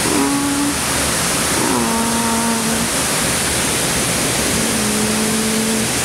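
A domestic cat meowing three times, each call sliding down and then holding a steady pitch, over the steady rush of a waterfall.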